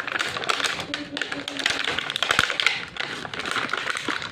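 Toy packaging being handled and opened by hand: a dense run of crackles and small taps.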